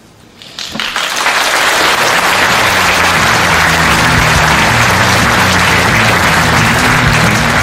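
Audience applauding, swelling about a second in and then holding steady, with rock music starting up underneath.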